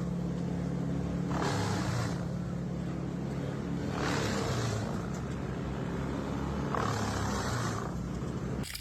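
Industrial wood shredder running with a steady engine drone. Three times its noise swells for about a second as timber logs are chewed into chips.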